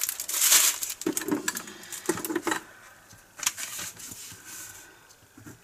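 Small plastic bags of diamond painting resin drills crinkling and rattling in short bursts as they are handled, then a pen scratching on paper.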